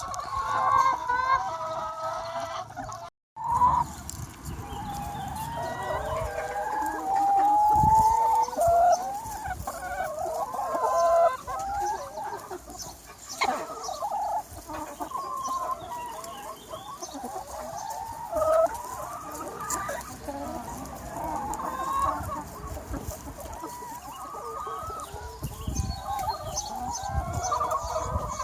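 A large free-range chicken flock clucking and calling over one another, with a rooster crowing among them. The sound cuts out for a moment about three seconds in.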